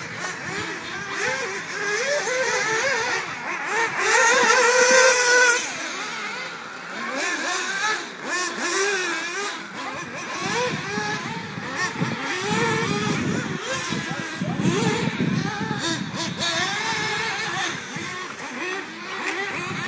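Several 1/8-scale RC racing buggies lapping a dirt track, their small nitro engines whining and constantly rising and falling in pitch as they accelerate and brake. The loudest stretch comes about four seconds in, as one buggy revs hard close by.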